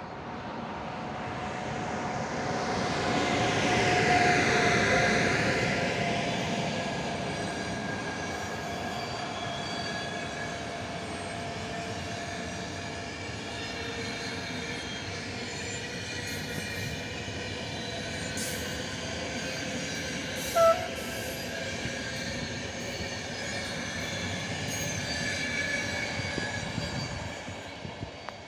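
A passenger train hauled by an EU44 (Siemens ES64U4 Taurus) electric locomotive rolling past, loudest about four seconds in, its coaches then running by steadily before it fades near the end. A short horn signal sounds about two-thirds of the way through.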